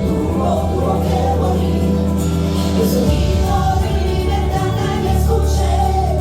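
Music with singing voices over held bass notes that change every couple of seconds.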